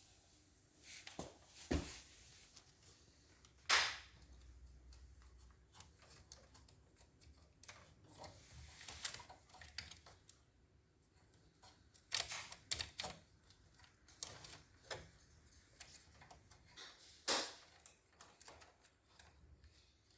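Scattered clicks and light knocks of hands working on a photocopier's main motor and drive assembly, fitting parts and plugging in its wiring. The sharpest knocks come about 2 and 4 seconds in and near the end.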